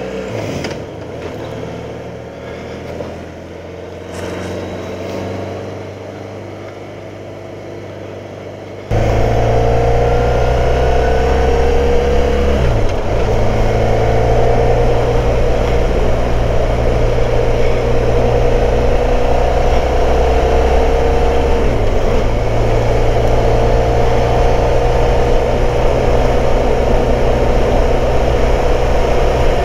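Motorcycle engine running under way. About nine seconds in, the sound jumps abruptly much louder, and the engine note then climbs slowly, with two brief dips at gear changes.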